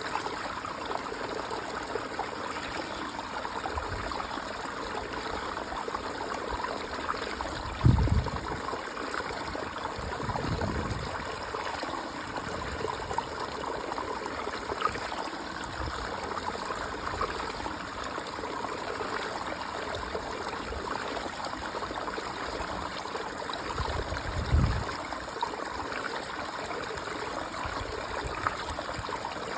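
Water running steadily from a pond, a continuous trickling stream. Twice, about a third of the way in and again near the end, a brief low rumble rises over it.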